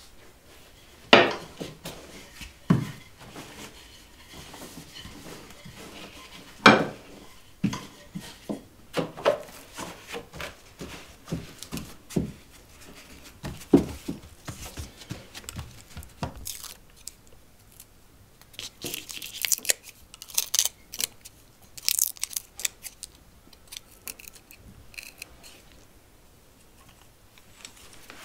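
Kitchen handling sounds during food preparation: a few sharp knocks of kitchenware on a hard surface in the first seven seconds, then scattered lighter taps. From about two-thirds of the way through come bursts of crinkling and tearing.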